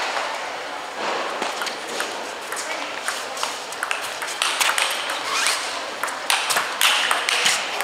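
Table tennis ball in a rally, clicking sharply off the table and the players' rackets in turn. The hits come more often in the second half.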